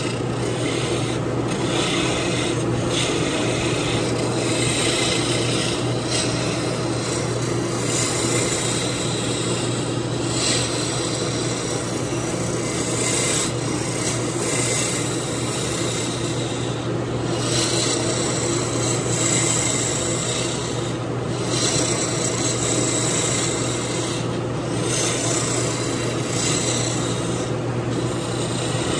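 Jet wood lathe running while a shaping tool cuts a spinning bocote duck-call blank: a continuous scraping hiss over a steady low hum, the hiss breaking off briefly every few seconds.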